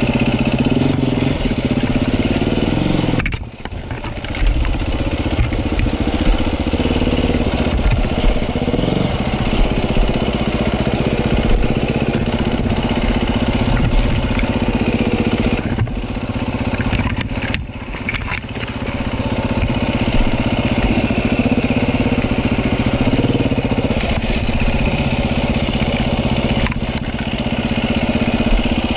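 KTM enduro motorcycle engine running at low revs under throttle, the revs rising and falling repeatedly as the bike crawls over rocks and roots. The engine note drops sharply for a moment about three seconds in and again around seventeen seconds.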